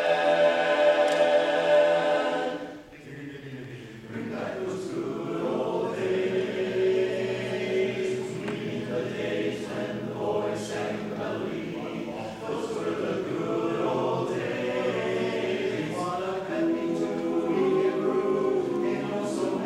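Men's chorus singing a cappella: a long held chord cuts off about two and a half seconds in, then after a short break the singing starts again and carries on.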